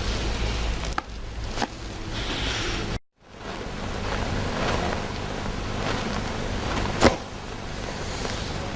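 Back being cracked in a chiropractic adjustment: a couple of soft clicks early on, then one sharp, loud crack about seven seconds in, over a steady background hiss and rustling.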